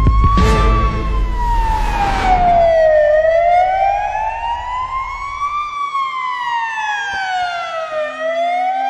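Emergency-vehicle siren in a slow wail, its pitch rising and falling about two and a half seconds each way. Music with a thudding beat sits under it; the beat drops out about two and a half seconds in and the bass stops a few seconds later.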